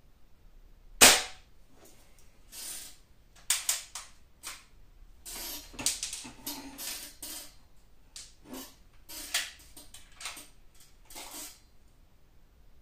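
A multi-pump pneumatic air rifle fires once about a second in, a single sharp crack. It is followed by a run of about a dozen shorter, softer strokes and clacks, the rifle being pumped and readied for the next shot.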